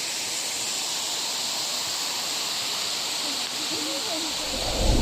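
Waterfall water rushing steadily. Faint voices come in about three and a half seconds in, and a louder low sound swells up near the end.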